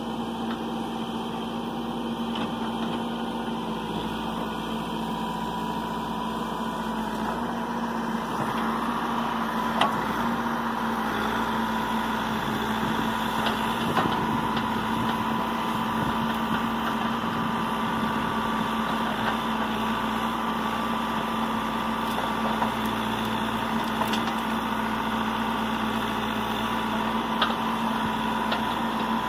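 Caterpillar 416 backhoe loader's diesel engine running steadily as the backhoe arm works, with a few sharp knocks along the way.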